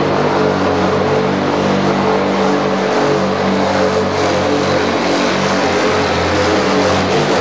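Modified pulling tractor's engine running hard under full load as it drags a weight-transfer sled, with a loud, steady drone and little change in pitch.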